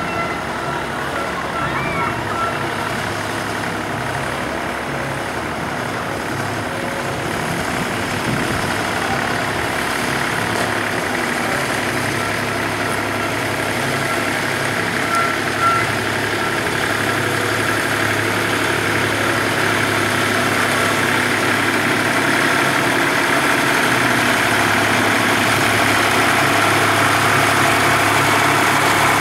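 Vintage tractor engine running steadily at low revs while the tractor drives slowly, growing gradually louder as it draws near.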